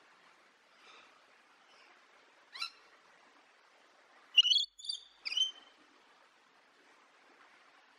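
Rainbow lorikeet calling in short, high-pitched calls: a faint one and a single call in the first few seconds, then a quick run of three louder calls just past halfway.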